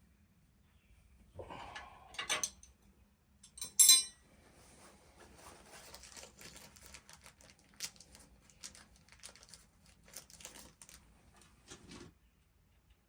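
Metal hand tools and parts clinking: a couple of clanks, one sharp loud clink about four seconds in, then a long run of small irregular clicks and rattles that stops about twelve seconds in.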